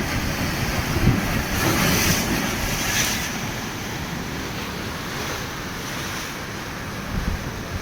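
Atlantic surf washing against rocks: a wave surges in with a rush of hiss about two seconds in, then eases to a steadier wash. Wind buffets the microphone with low, irregular rumbles.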